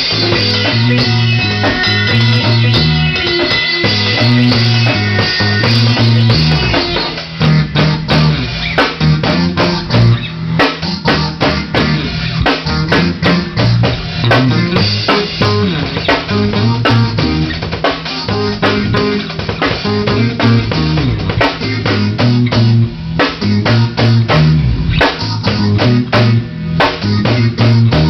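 Band jam: electric guitar playing a repeating low riff, with a drum kit coming in about six or seven seconds in and keeping a steady beat.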